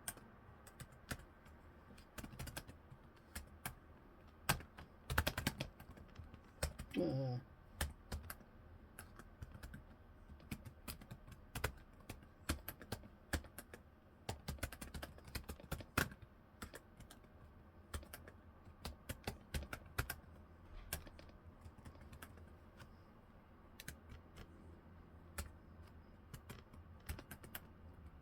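Typing on the newly fitted replacement keyboard of a Toshiba Z930/Z830 laptop: irregular, quick key clicks, testing that the new keys all register.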